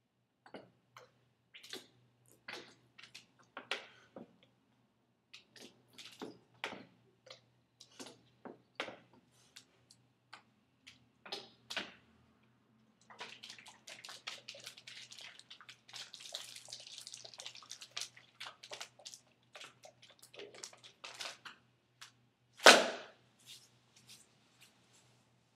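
Paint being squeezed and splattered onto a paper backdrop: scattered short wet squishes and splats, several seconds of denser spattering about halfway through, and one much louder sharp splat a few seconds before the end.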